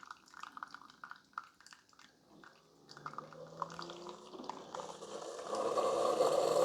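Keurig K-Supreme Plus Smart pod coffee maker brewing: coffee dripping and sputtering into the cup. From about three seconds in a low steady hum joins, and a hissing, gurgling rush grows louder.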